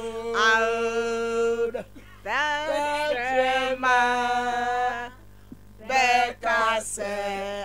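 A single unaccompanied voice singing long held notes, sliding into each one, in three phrases with short breaks between them.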